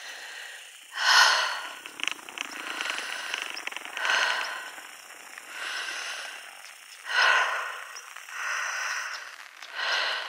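A person breathing close to the microphone, a loud breath about every three seconds with a softer one between.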